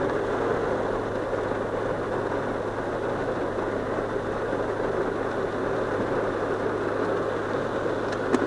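Car engine idling steadily, heard from inside the cabin as a low, even hum under a steady rushing noise.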